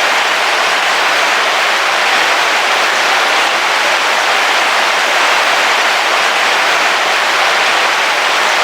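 Heavy rain falling on a car roof, heard from inside the vehicle as a steady, even hiss with no thunder.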